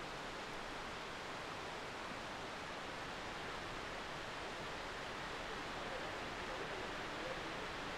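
Steady rushing of a mountain waterfall cascading down rock.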